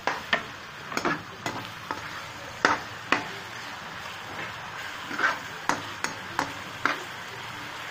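A metal ladle stirring onions and chopped tomatoes frying in ghee in a metal pot: about a dozen irregular clinks and scrapes of the ladle against the pot over a steady sizzle.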